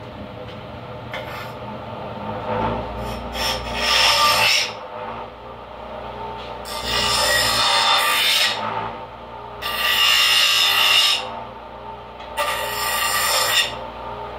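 A small strip of metal being filed by hand into a dial pointer, in four bouts of rasping strokes a second or two long with short pauses between.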